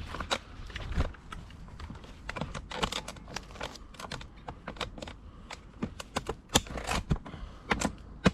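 Scattered airsoft gunfire: irregular sharp clicks and snaps of BB guns firing, several in quick clusters, the loudest about six and a half seconds in and at the very end.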